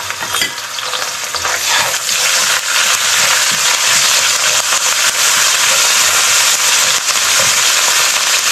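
Minced garlic and ginger paste sizzling in hot cooking oil in a pan. The frying hiss gets louder about two seconds in and then stays steady as the aromatics cook until fragrant.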